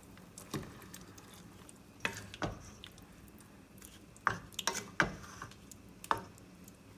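Wooden spatula stirring pork pieces in soy sauce and water in a stainless steel pot, knocking and scraping against the pan in scattered strokes, about half a dozen.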